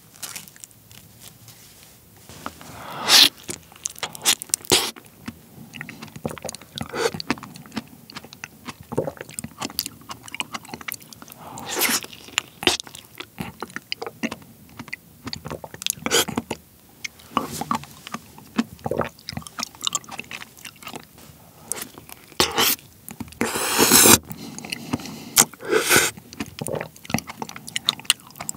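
Close-miked eating of a soft, ripe seedless Cheongdo bansi persimmon with its skin on: many short wet smacks and bites as the jelly-like flesh is sucked from the skin, with one longer slurp a little after two-thirds of the way through.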